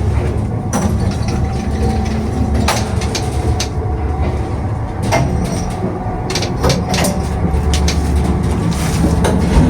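A 1981 Samarkand-built LP-320 passenger lift car in motion: a steady low rumble with irregular sharp creaks and knocks, about eight of them.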